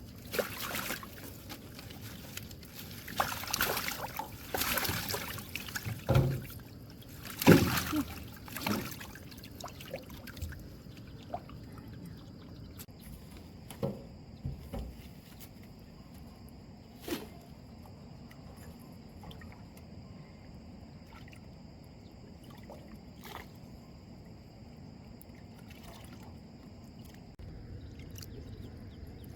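Water splashing, sloshing and dripping around a small boat, with a couple of heavy knocks in the first ten seconds; after that it goes quieter, with a few scattered clicks and knocks.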